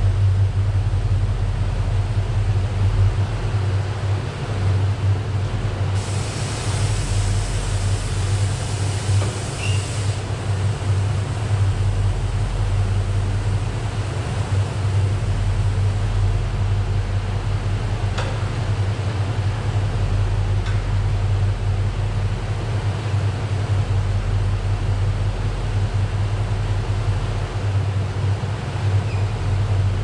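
Swapped-in 5.7 Hemi V8 engine idling steadily, with a hiss lasting about four seconds starting about six seconds in and a couple of faint clicks later.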